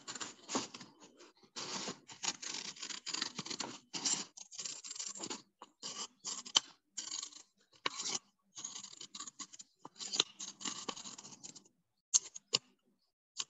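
Scissors cutting a circle out of chart paper: a run of irregular snips and paper rustle, stopping about twelve seconds in, followed by a few sharp clicks.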